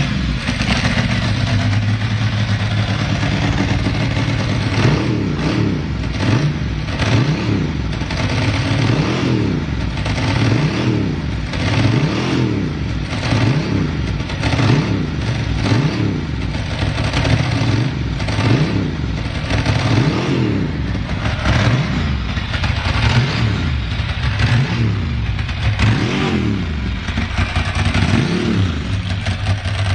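Ducati ST2 motorcycle's 944 cc L-twin engine idling steadily, then blipped repeatedly with the throttle, the revs rising and falling about every second and a half before settling back to a steady idle near the end. The seller describes it as running with a stable idle and no abnormal noises.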